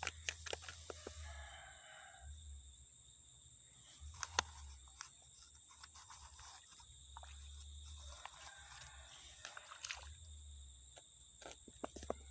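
Steady high drone of insects such as crickets, with a bird calling twice and scattered sharp clicks and taps. The loudest click comes about four seconds in.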